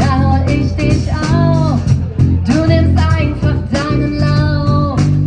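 A small band playing a song: a woman singing long held notes over bass guitar, drums and plucked strings.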